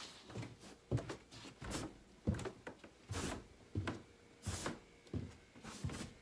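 Footsteps going downstairs, about one to two a second, with the rustle and knock of a carried laundry basket.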